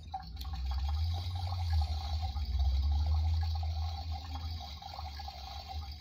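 Toy dishwasher running its wash cycle: its small pump spraying and splashing water inside the plastic tub, steady throughout, with a low hum that grows louder in the middle.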